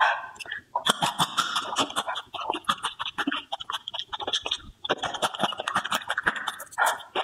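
Close-miked chewing and wet mouth sounds from someone eating soft food, a fast, irregular run of small smacks and clicks with brief pauses.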